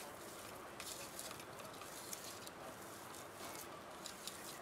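Hand mixing and squeezing a mash of boiled potato, egg and spices in a steel bowl: faint, irregular soft squishes and light scrapes.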